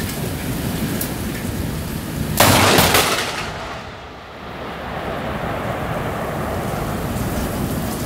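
Heavy rain with a sudden loud crack of thunder about two and a half seconds in, from a lightning strike close enough that the flash and the crack come together; it fades over about a second and the rain keeps on.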